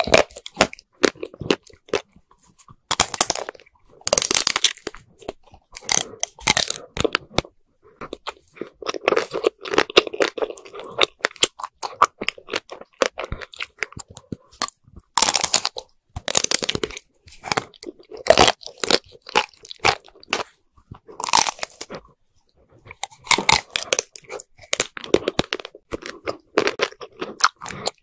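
Close-miked biting and chewing of chocolate-coated ice cream bars, some with a nut-studded shell. The hard chocolate coating cracks and crunches in loud bursts every few seconds, with chewing between the bites.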